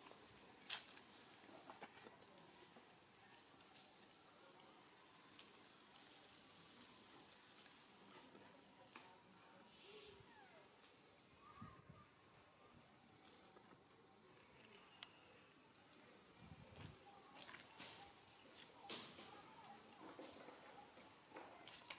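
Near silence: faint outdoor ambience with a small bird's short, high, falling chirp repeated about once a second, and a few faint clicks.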